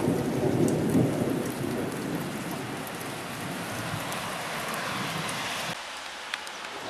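Thunderstorm: a low roll of thunder that fades over the first couple of seconds into a steady hiss. The low rumble cuts off abruptly near the end.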